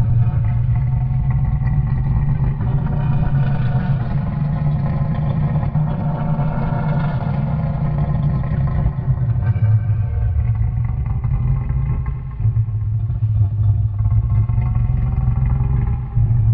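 Homemade Triceratops sound effect: a long, deep, buzzing creature growl that runs on almost without a break, with short dips about ten and twelve seconds in and again near the end.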